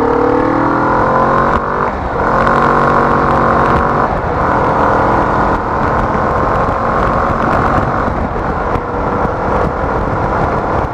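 Kawasaki Vulcan S's 649 cc parallel-twin engine accelerating, its pitch rising, with an upshift about two seconds in, then holding a steady note at cruising speed near 70 mph. Heavy wind rush runs over it, the helmet microphone's sound with the visor up.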